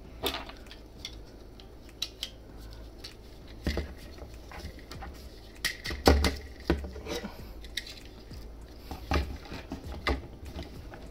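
Hard plastic parts of a Super Minipla Live Robo model kit clicking and knocking together as a truck-shaped vehicle is handled and fitted on as the robot's second arm. There are scattered separate clicks, the loudest about six seconds in.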